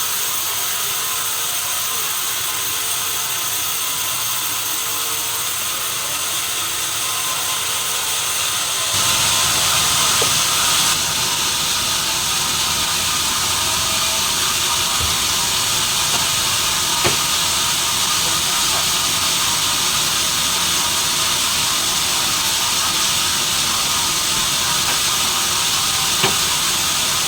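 Sawmill machinery running with a steady hiss. The sound fills out and grows louder about nine seconds in, with two short knocks later on.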